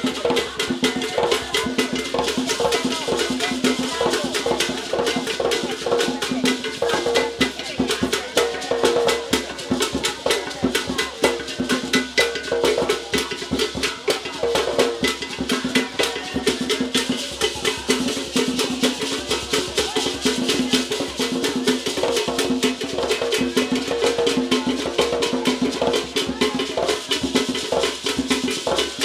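Ghanaian traditional drum ensemble playing a fast, steady rhythm of hand drums, with a sharp clicking percussion part keeping time over them.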